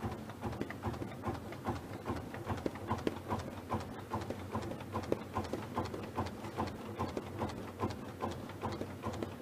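OSF 300 flexo printing and automatic punching machine running, with a steady, even clatter of about three knocks a second over a low mechanical hum.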